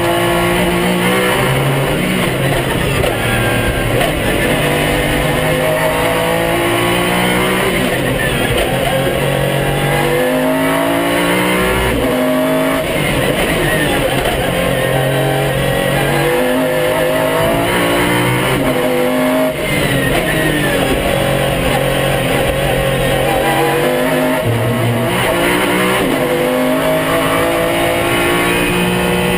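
Pagani Zonda R's V12 engine under hard acceleration. Its pitch climbs through each gear and drops back at every shift, over and over.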